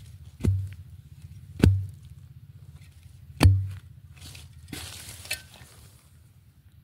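Long-handled metal digging spade driven into damp forest soil three times, each stroke a sharp thud, about half a second, a second and a half, and three and a half seconds in, as soil is dug away around a wild yam tuber. A softer scraping of soil and roots follows about five seconds in.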